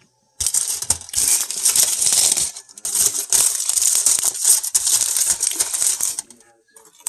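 Aluminum foil being handled and crumpled, crinkling loudly for about six seconds with a couple of brief pauses.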